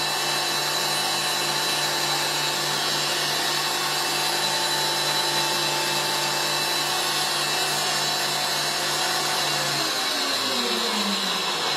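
Electric stand mixer with a whisk attachment running steadily, beating egg whites for meringue to the frothy stage. About ten seconds in it is switched off and the motor winds down with a falling pitch.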